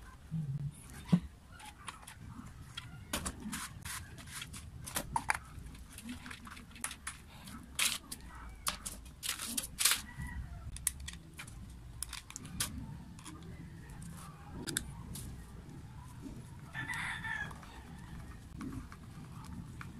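Irregular clicks and taps of metal and plastic parts being handled as a Bosch angle grinder's gear head and screws are refitted. A short bird call sounds in the background near the end.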